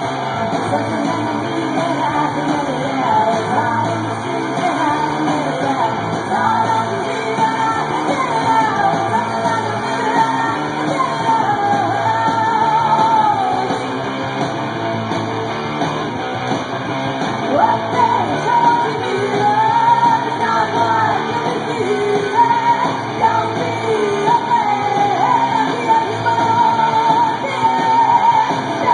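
Punk rock song playing: yelled vocals over electric guitar, bass and drums, continuous and loud.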